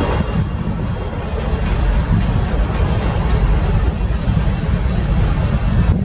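Freight train passing, with a steady low rumble of wheels on rail. A diesel locomotive's engine drone fades out right at the start.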